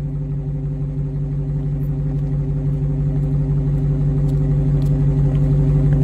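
Dodge Challenger engine idling through its dual exhaust, a steady low rumble whose pitch holds constant while it grows gradually louder.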